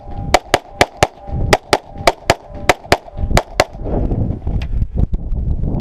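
Rapid pistol fire: about a dozen shots in quick pairs, each pair about a quarter second apart, over the first four seconds. A few fainter shots follow near the end.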